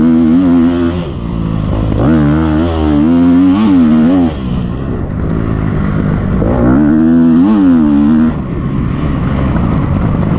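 2012 KTM XC-F 250 single-cylinder four-stroke dirt bike engine, freshly rebuilt, revving under throttle. Its pitch rises and falls in three long bursts, with quieter off-throttle dips between them.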